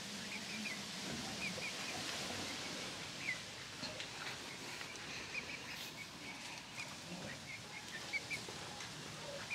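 Steady outdoor background hiss with faint, short bird chirps repeating throughout.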